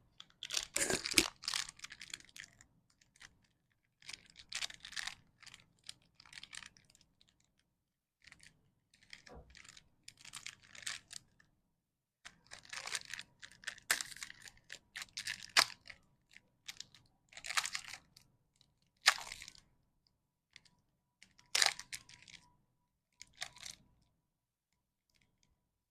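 Plastic candy wrappers crinkling and tearing as lollipop packets are opened, in irregular bursts a second or two long with quiet gaps between and a few sharp clicks.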